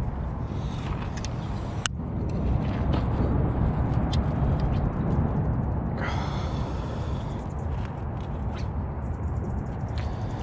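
Steady low rumble of wind and handling noise on a body-worn camera's microphone while fishing gear is handled at a car trunk, with scattered clicks and knocks and one sharp click about two seconds in. A brief high squeak sounds about six seconds in.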